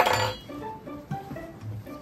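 Background music of short plucked notes, opening with a sharp metallic clink that rings briefly.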